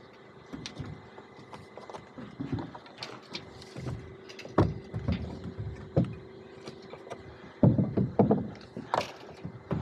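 Scattered knocks and clicks of framing work on an OSB-sheathed wood deck, with a run of heavier thumps on the deck near the end. A faint steady hum runs through the middle.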